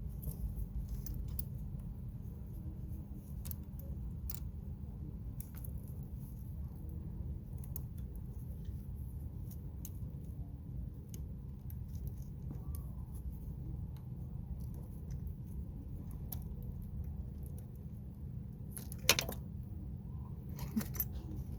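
Scattered small metal clicks and clinks of bolts, screws and a battery terminal clamp being handled and screwed down by hand, over a steady low rumble. The sharpest click comes about 19 seconds in.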